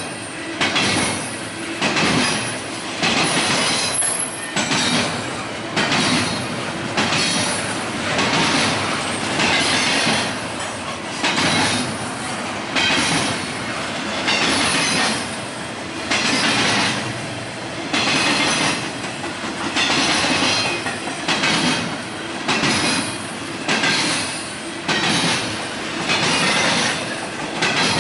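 Train cars rolling past, their wheels clattering over the rail joints in surges that come every second or two.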